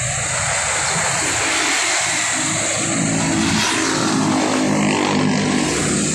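Motorcycle engine running while riding, with wind rushing over the microphone; the engine note rises about halfway through.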